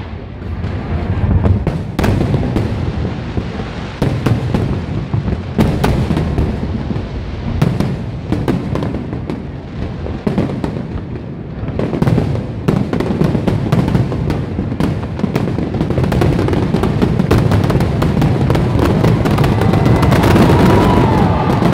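Fireworks display: a continuous barrage of aerial shells bursting, with booms over a steady rumble. Toward the end it turns into dense crackling.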